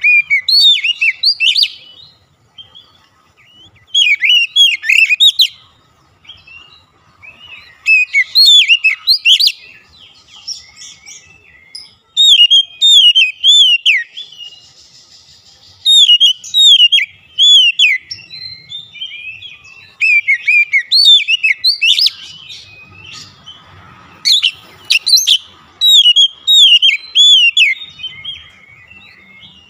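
Oriental magpie-robin singing: bursts of rapid, slurred whistled notes, repeated about every three to four seconds with short pauses between phrases.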